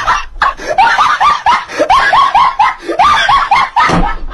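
A shrill, screaming, laugh-like voice in a rapid series of short rising-then-falling cries, about four a second, dying away near the end.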